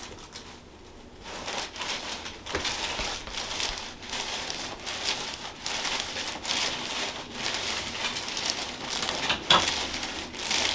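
Repeated rustling, rubbing strokes, roughly one or two a second, with one sharp click near the end.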